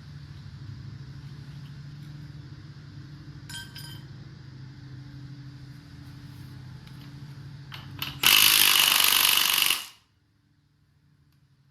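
A metal part rings once with a short clink, then a power tool runs in one loud burst of about a second and a half and cuts off sharply, over a steady low hum.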